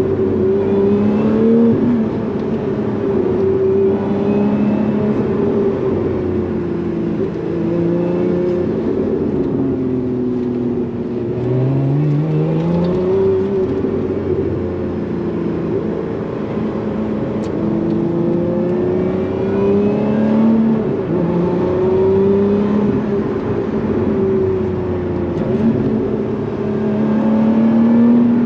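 Lotus Emira's supercharged 3.5-litre V6 running under way, its engine note rising and falling in pitch again and again as the car speeds up and eases off.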